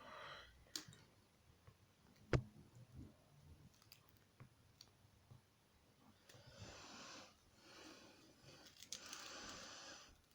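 Faint handling of a plastic action figure and its parts: scattered small clicks, one sharp click about two seconds in, and soft rustling twice near the end.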